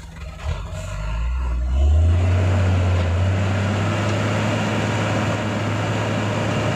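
Tanker truck's diesel engine revving up from about half a second in and held at high, steady revs under heavy load as the truck struggles through deep mud, with the noise of the rear wheels churning in the ruts.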